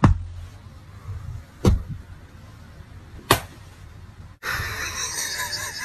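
Hands patting down flat onto a thick blanket: three soft, dull thumps about a second and a half apart. A steady hiss sets in near the end.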